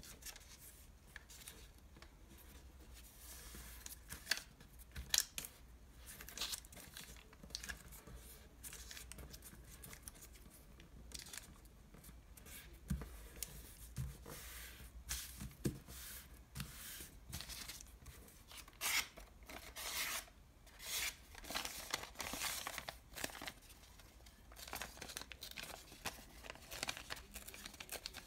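Thin paper french-fries bag being handled by hand: crinkling, rustling and sharp crackles as it is smoothed flat and creased into folds, busiest about two-thirds of the way in.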